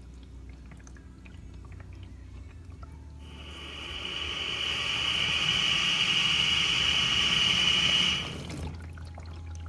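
An LG direct-drive dishwasher hums low, then a loud rush of water starts about three seconds in and cuts off sharply about five seconds later, as the machine takes in or sprays water.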